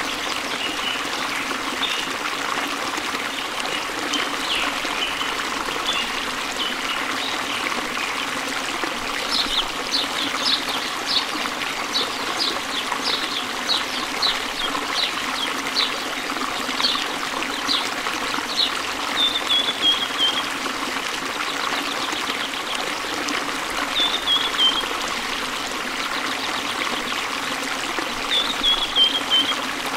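Ducklings peeping: short high calls, densest through the middle, with a few quick falling runs of notes later. A steady trickle of running water goes on underneath.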